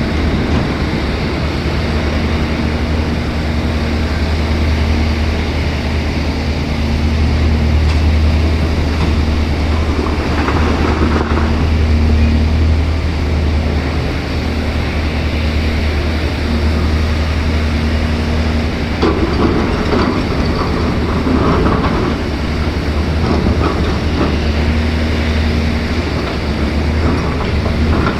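Caterpillar 336 excavator's diesel engine running steadily at working speed, with louder noisy stretches about ten seconds in and again near twenty seconds.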